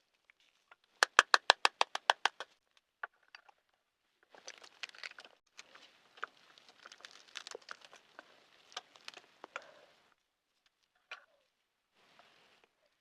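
Shell of a boiled balut (fertilized duck egg) being cracked: a quick run of about a dozen sharp taps about a second in, then several seconds of soft crackling and small clicks as the broken shell is picked away.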